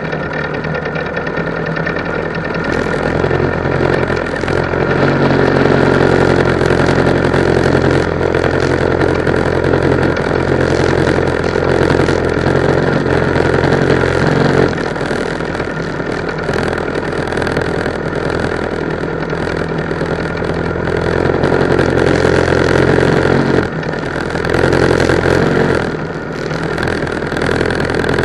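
Go-kart engines idling steadily, the note swelling and easing a little a few times.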